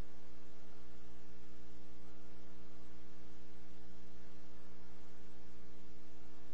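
Steady electrical mains hum with its buzzing overtones, over a constant hiss.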